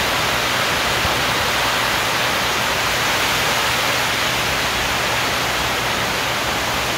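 Heavy rain pouring down in a strong storm: a steady, dense hiss that does not let up.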